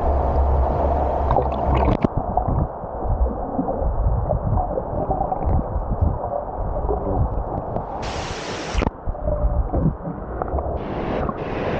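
Muffled underwater gurgling and bubbling from a camera held under the water of a waterfall pool, with the high sounds cut off. About eight seconds in the microphone breaks the surface for under a second with a rush of water, and near the end it does so again in short splashes.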